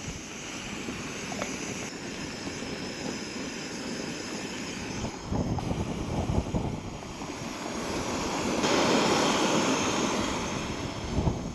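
Jetboil backpacking stove's gas burner running, a steady rushing hiss of burning canister gas as it heats water. It gets louder for a stretch near the end.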